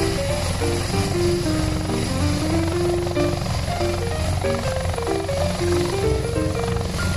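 Helicopter rotor chopping steadily over a background music melody of short stepping notes.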